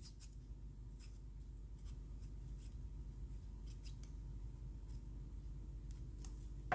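Faint scattered light ticks and scrapes from hands working a folded piece of black cardstock and a tube of liquid glue, over a low steady hum.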